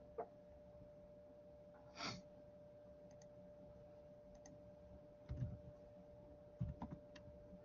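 Near silence over a headset microphone: a steady faint hum, a few faint clicks, a short breath about two seconds in, and two low thumps in the second half.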